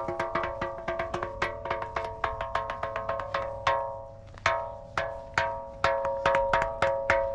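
Gaval Dash, the ringing 'tambourine stone' boulder of Gobustan, struck over and over with a small hand-held stone. Each blow gives a sharp knock and a clear, lingering ring. The strikes come quickly, slow to a few spaced blows around the middle, then quicken again.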